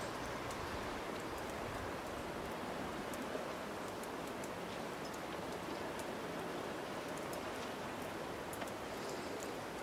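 Steady hiss of sea water washing and lapping, with faint scattered crackles.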